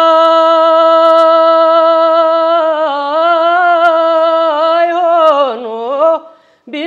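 A young man singing an Amharic song unaccompanied, holding one long wavering note for about six seconds; the note slides down and breaks off, and he starts the next phrase right at the end.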